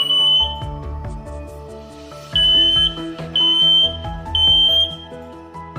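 TSS382 photoelectric smoke alarm sounding its test beep, which shows the alarm is working: a high beep at the start, then after a pause a group of three beeps about half a second long, a second apart.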